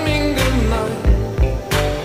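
Background music: a pop song with a singing voice over a steady beat.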